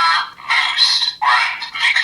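Electronic sound effects and voice calls from a Kamen Rider Geats DX transformation belt toy, played through its small built-in speaker. The sound is thin and tinny, with nothing low, and comes in short bursts with gaps between them.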